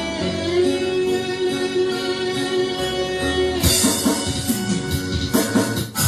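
Music: sustained pitched notes, with drums and percussion coming in about two-thirds of the way through.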